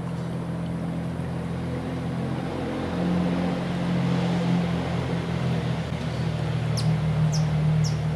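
A steady low motor hum that gets a little louder about three seconds in, with a few quick, high bird chirps near the end.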